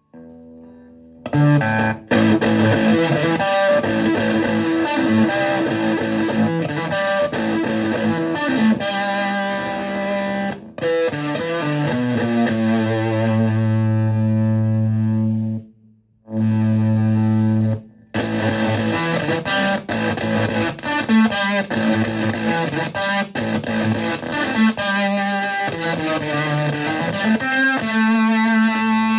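Electric guitar, a Stratocaster, played through a reproduction wooden-box Tone Bender MKI fuzz pedal into a Twin Reverb-style amplifier: a distorted fuzz tone playing riffs and chords, with long held low notes partway through and a few short stops.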